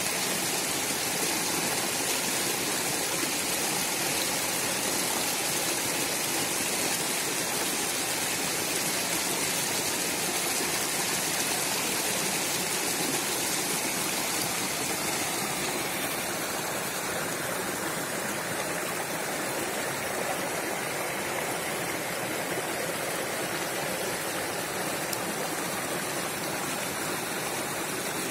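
Shallow mountain stream rushing over rocks: a steady, dense water noise that eases slightly about halfway through.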